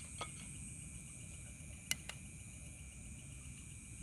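Night insects chirring steadily at a high pitch, with a few sharp clicks: one just after the start and two close together about halfway through.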